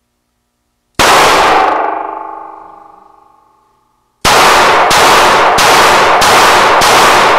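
A small Smith & Wesson revolver fires one shot about a second in, followed by a metallic ringing that fades away over about three seconds. From about four seconds on, further shots follow about one and a half per second, so loud that they run together into a continuous din.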